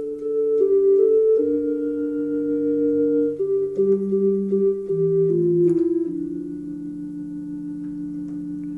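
Electronic keyboard playing a slow instrumental introduction with an organ-like sound: held chords that don't fade, changing every second or so, then one chord held, a little quieter, from about six seconds in.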